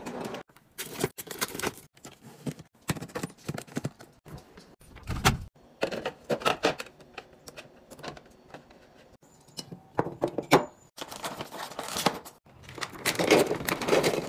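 Containers and food items being handled and set down while organizing a fridge: irregular clicks, taps and knocks, with a denser run of clatter near the end.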